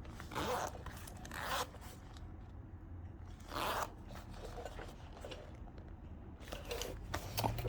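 A zip slider being pulled along the zip teeth in short strokes, a few quick rasps with pauses between, testing the slider just refitted to the leather pants.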